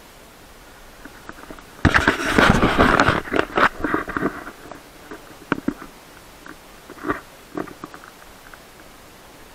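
Handling noise from a pole-mounted action camera being turned around: a loud rubbing, scraping rumble about two seconds in that lasts about two seconds, followed by scattered clicks and knocks.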